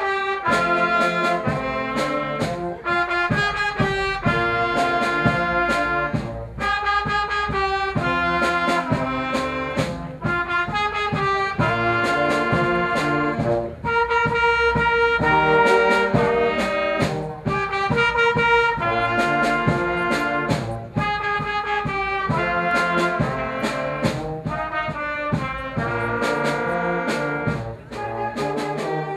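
Youth wind band playing a piece: brass and woodwinds in several parts over a steady beat.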